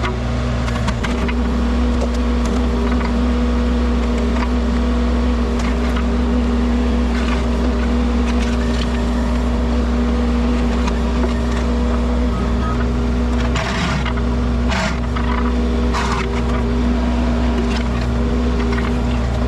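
Wacker Neuson mini excavator's diesel engine running steadily under work, with a few knocks and scrapes from the working machine in the second half.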